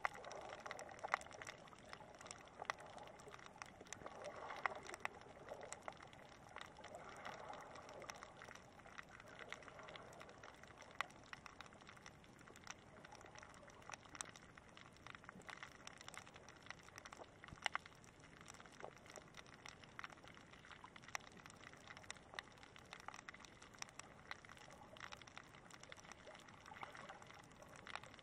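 Faint shallow-water underwater ambience: a soft gurgling wash of moving water, stronger in the first ten seconds, with scattered sharp clicks and crackles throughout.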